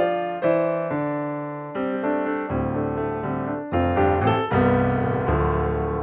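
Background piano music: notes and chords struck one after another at an easy pace, each fading as it rings.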